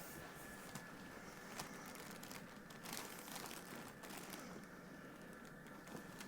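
Faint rustling with a few soft clicks: a person shifting on a padded chiropractic treatment table.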